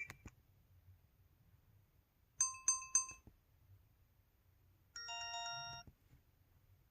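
EV-W350 mobile phone's synthesized cancel/warning tones played one after another: a quick three-pulse bright chime, then about two seconds later a short, slightly pulsing multi-note electronic tone.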